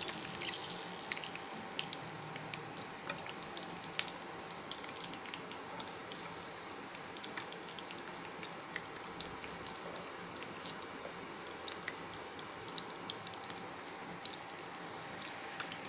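Pav-bread pua frying in hot oil in a pan: a steady sizzle with scattered small crackles and pops.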